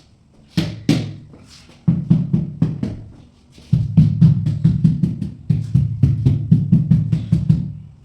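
Drum-led music with a steady, fast beat of low thumps and sharp hits; it starts with a few scattered hits and cuts off suddenly near the end.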